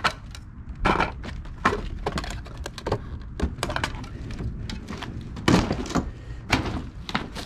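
Debris in a dumpster being handled and shifted: a string of irregular knocks, cracks and clatters, the loudest about five and a half seconds in and again about a second later.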